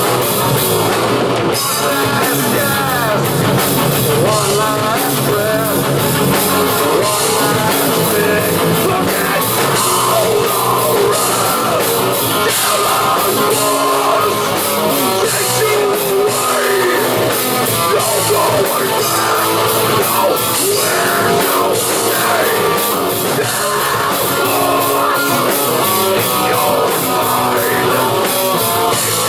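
Live rock band playing loud heavy rock: electric guitars over a drum kit, the guitar lines bending up and down in pitch.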